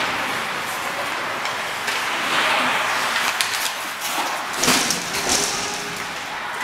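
Ice hockey play in an indoor rink: skates scraping and sticks clacking on the ice over a steady hall noise, with several sharp knocks. The loudest knock comes about four and a half seconds in.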